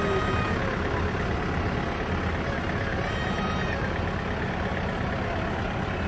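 Farm tractor engine running steadily, a low, even rumble.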